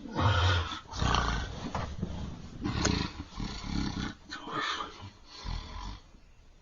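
A sleeping man with severe sleep apnea snoring in a run of loud, ragged snores and gasps, one every half second to a second, which fall quiet about six seconds in.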